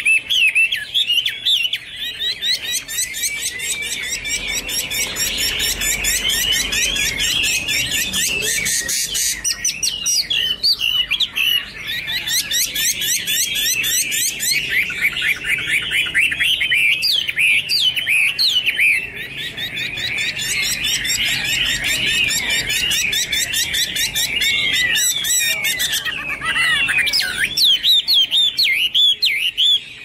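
Chinese hwamei (melodious laughingthrush) singing: a long, nearly unbroken run of quick, varied whistled phrases, the notes sliding rapidly up and down.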